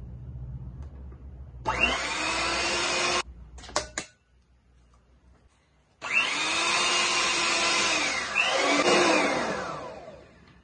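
Electric hand mixer with spiral dough hooks kneading flour, egg and liquid into dough. It runs in two bursts, its motor whine rising as each starts. A couple of sharp clicks come between the bursts. In the second burst the pitch dips once under the load of the stiffening dough, then sinks as the motor slows to a stop near the end.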